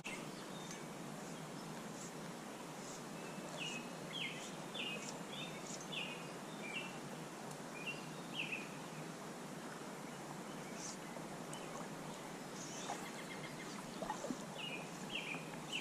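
Steady rush of creek water, with a small bird calling in quick series of short chirps, a few seconds in and again near the end.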